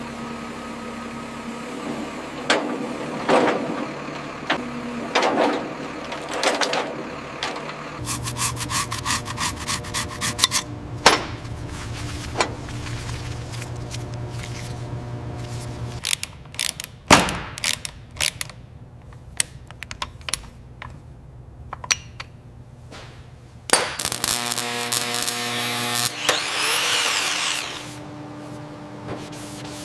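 A run of workshop tool sounds that changes every few seconds: a power tool running with steady whine and hum, quick ratchet-like clicking, and scattered metal knocks. Near the end there is a couple of seconds of hissing.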